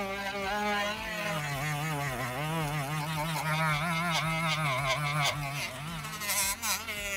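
Small pen-style rotary tool spinning a red buffing wheel against a grey resin 3D-printed part, polishing it. The motor whine wavers in pitch and drops lower about a second in, then holds there until it eases off near the end.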